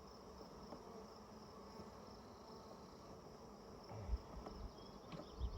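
Honeybees buzzing around an open hive, a faint steady hum from bees stirred up by the inspection. A few low thumps come near the end.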